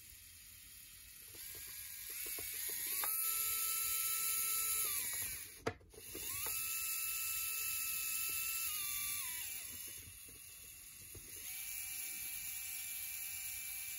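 LEGO Power Functions micro motor whining as it runs on power picked up from 9-volt train track through a speed regulator, which shows the pickup conducts. Its pitch rises as the speed is dialed up, holds steady, then falls. The sound cuts out for a moment about halfway through, spins up again, falls, and near the end settles at a lower steady pitch.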